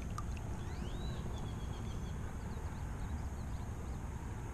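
Steady outdoor ambience at a pond: a low, even rumble under a thin, high, steady insect drone, with a short bird chirp rising then falling about a second in.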